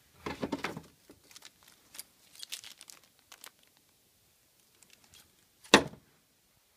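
Clear plastic packaging bags crinkling and rustling as they are handled, with scattered crackles. A single sharp knock near the end is the loudest sound.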